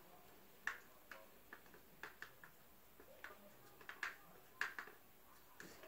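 Faint, irregular clicks and taps from a stick stirring a sticky mix of glue and red paint, about a dozen spread unevenly.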